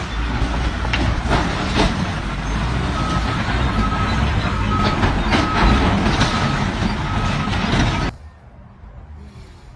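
Heavy vehicle engine running loudly with a reversing alarm beeping at an even pace and a few knocks and clanks. It cuts off abruptly about eight seconds in.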